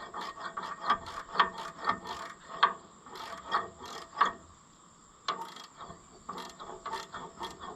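Ratcheting wrench clicking in short, irregular runs of strokes as a part is turned in, with a pause of about a second midway.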